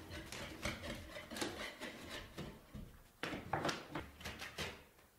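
Steel joint knife scraping and spreading plaster compound on plasterboard, in a run of short, irregular strokes that get louder about three seconds in.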